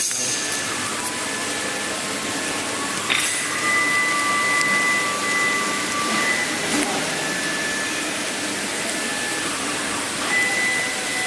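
BCM1520 CNC router running: a steady rushing noise with a high whine on top that shifts pitch several times as the machine moves.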